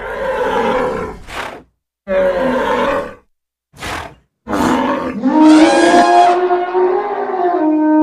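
Wild animal calls: a few short, rough calls with silent gaps between them, then one long pitched call starting about five seconds in.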